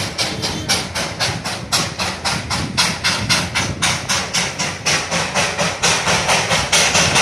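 Darjeeling Himalayan Railway toy train's steam locomotive chuffing in a fast, even rhythm of hissing exhaust puffs, about five a second, over a low rumble, growing a little louder toward the end.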